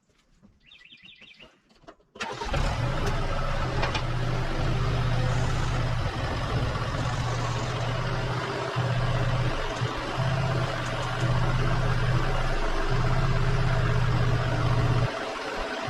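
Bird chirps twice, then about two seconds in an engine comes in abruptly and runs steadily with a strong low hum, dipping briefly a few times.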